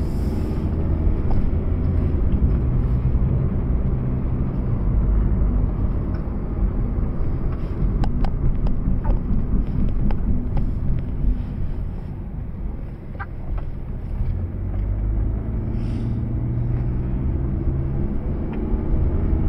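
Proton Saga's 1.3-litre four-cylinder engine running while driving, heard from inside the cabin, with tyre and road rumble. There are a few light knocks around the middle, and a short easing of the engine about two-thirds of the way through before it pulls steadily again.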